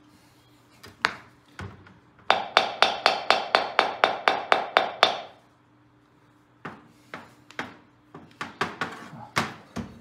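Rubber hammer tapping on a Kohler Magnum 18 engine cylinder: a few single taps, then a quick run of about a dozen taps at four or five a second, then scattered taps near the end. The cylinder is being tapped out a little at a time to make room to push the piston pin through.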